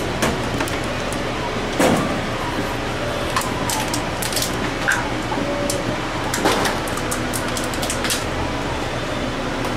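Scattered knocks and clicks of things being handled, the loudest about two seconds in, over a steady machine hum.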